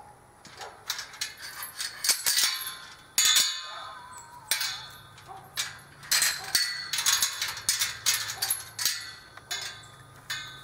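Metal clinking and clanking from a steel round-pen panel gate and its latch or chain being handled and fastened: a quick, uneven series of sharp ringing knocks.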